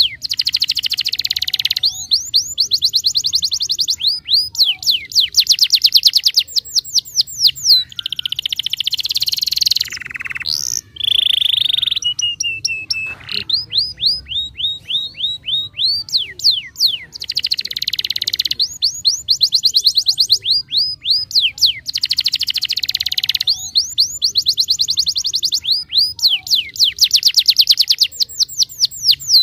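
Domestic canary in full song: loud trills of rapid down-sweeping notes, phrase after phrase with short breaks. About ten seconds in comes a harsher buzzy stretch and a briefly held note.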